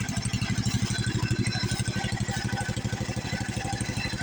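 Old tractor engine idling steadily, its firing heard as a rapid, even beat.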